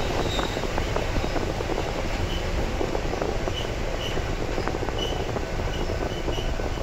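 Sangi Railway 101 series electric train (car KuMoHa 106) running along the line, heard from its rear cab: a steady rumble of wheels on rail with motor and body noise, ticks, and short high squeaks from the wheels from about two seconds in.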